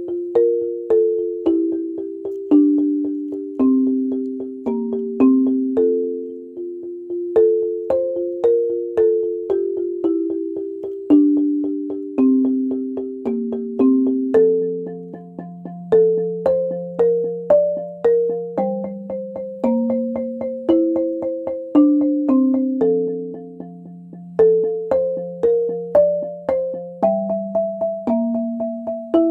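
Marimba played with two yarn mallets: a slow melody in two voices in the middle and low register. Each note is sustained by a fast roll of mallet strokes, moving from chord to chord every second or two.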